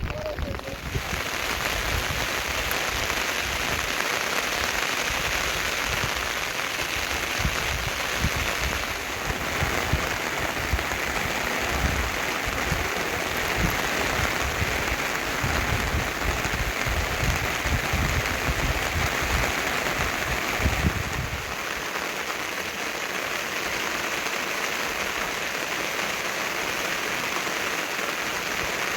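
Steady rain falling, an even hiss, with a low rumble underneath that drops away about three-quarters of the way through.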